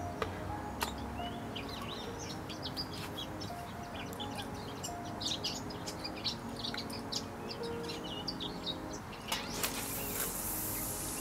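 Small birds chirping over soft background music. About nine seconds in comes a rushing hiss lasting a couple of seconds as a spod rod is cast and the spomb flies out.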